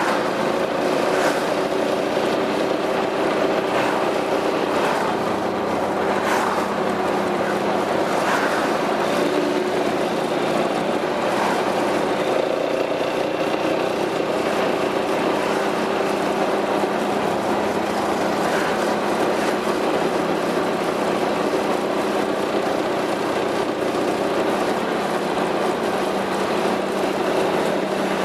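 Piaggio MP3 400 scooter's single-cylinder four-stroke engine running steadily through an aftermarket Akrapovič exhaust, giving a constant low hum.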